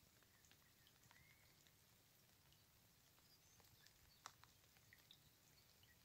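Near silence with light rain: faint scattered drops ticking, one sharper tick about four seconds in.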